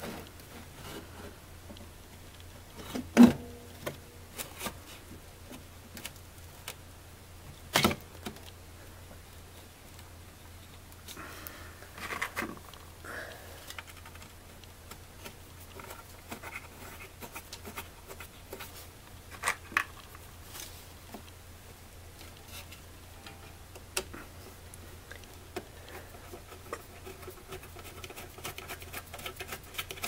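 Replacement HVAC blower motor being worked into its plastic housing by hand. A few sharp knocks of the motor's mounting plate against the housing, the loudest about three seconds in, with scraping and rubbing in between.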